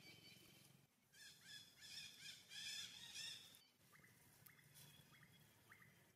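Newborn macaque giving a quick string of short, high-pitched squeaks, about three a second, followed by a few fainter thin chirps.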